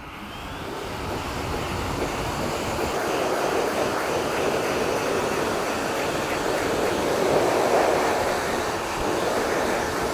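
Low-flow pet dryer blowing a steady stream of air onto a dog's wet coat. It grows louder over the first couple of seconds, then holds steady.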